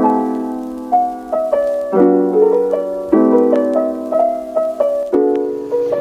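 Background music: a soft piano or electric piano playing sustained chords struck roughly once a second, with a simple melody line above.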